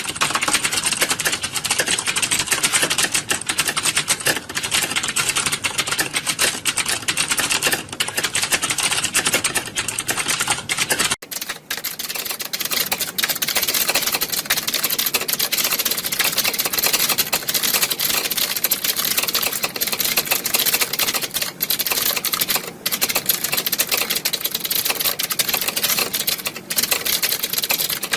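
Many computer keyboards being typed on at once, a dense, continuous clatter of overlapping key clicks like a hall full of typing-test candidates. About eleven seconds in the sound changes abruptly and becomes thinner, with less low end.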